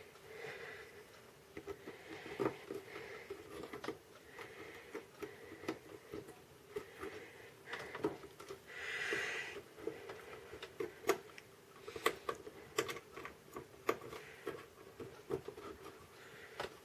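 Scattered small clicks and handling noises of wire-harness connectors being worked off and back onto the pins of a synthesizer's circuit board, irregular and faint, with a brief soft rush about halfway through.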